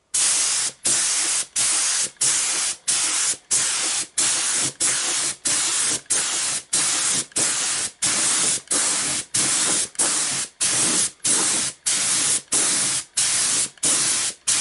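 Compressed-air paint spray gun laying down a heavy coat of clear coat: a loud hiss of air and atomised lacquer, cut into short bursts about one and a half times a second, with a brief gap between passes.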